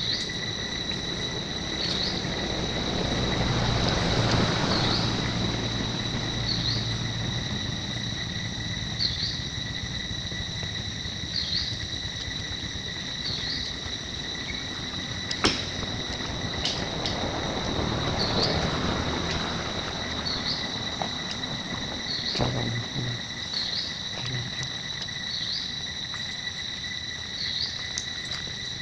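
Forest insects droning steadily: an unbroken high whine with a short chirp repeating about every two seconds. A hiss swells twice, and a single sharp click comes about halfway through.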